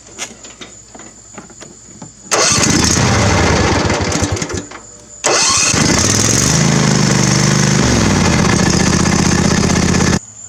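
Briggs & Stratton V-twin on a zero-turn mower being started after refuelling: a first try about two seconds in that turns over and dies away, then a second try a few seconds in that catches and runs steadily until it cuts off suddenly near the end.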